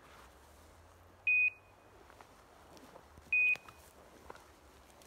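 Dog beeper collar on an English setter giving a short, high single beep every two seconds, twice. This is the point-mode signal that the dog has stopped and is standing on point.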